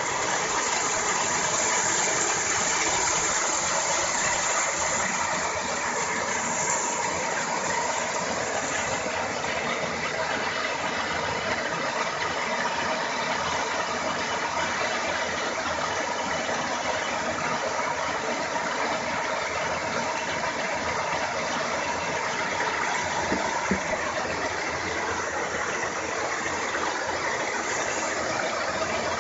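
Paddle wheel aerator with a 1.5 kW electric motor running steadily, its paddle wheels churning and splashing the water. A steady mechanical hum from the drive sits under the rushing splash.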